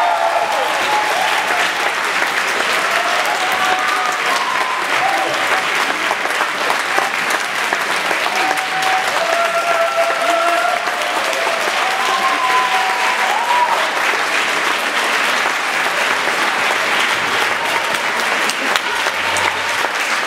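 An audience applauding steadily and at length, with voices and shouts breaking through now and then.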